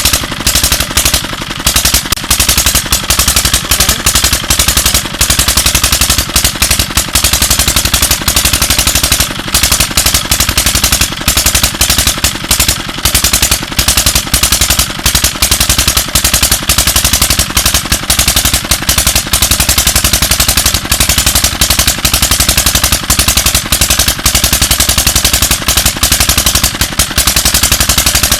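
Tube-well pump engine running, a loud continuous rapid train of sharp exhaust bangs; a very bad sound, by the uploader's account of the engine.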